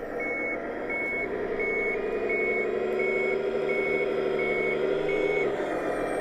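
The engine-sound module of a 1:14 scale RC wheel loader playing its reversing alarm: eight steady beeps about 0.7 s apart, over a simulated diesel engine that rises about a second in. The engine drops back and the beeping stops near the end, as the loader stops reversing.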